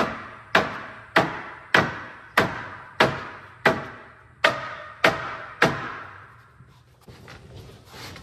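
Hand hammer striking overhead, knocking a pine tongue-and-groove ceiling board into place: about ten sharp blows a little over half a second apart, each with a short ringing tail, stopping about six seconds in.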